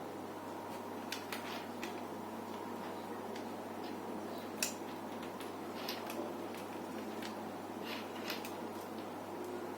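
Scattered light clicks and taps of small laptop parts and screws being handled and fitted during reassembly, irregularly spaced, with one sharper click a little under halfway through, over a steady background hum.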